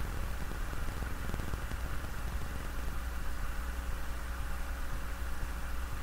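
A steady low hum under an even hiss, with no distinct events: the background noise of a recording left running in silence.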